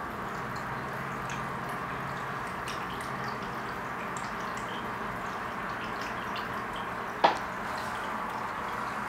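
Aquarium water trickling steadily, with small scattered drips, and one sharp knock about seven seconds in.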